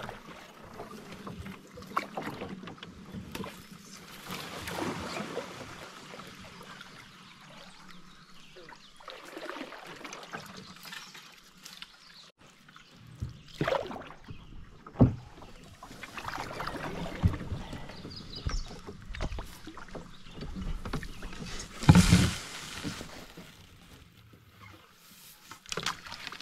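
Canoe being paddled: irregular paddle strokes swishing through the water, with a few sharp knocks, the loudest about two thirds of the way through.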